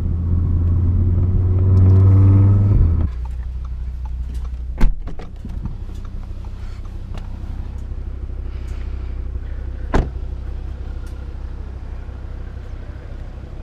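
Audi RS3's turbocharged 2.5-litre five-cylinder with a free-flowing exhaust, heard from the cabin at full throttle, its pitch rising until the throttle is lifted abruptly about three seconds in. It then runs at a lower steady note with road rumble, broken by two sharp bangs about five and ten seconds in.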